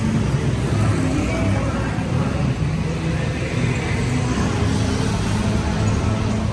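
Street traffic: a steady rumble of cars and other motor vehicles running past.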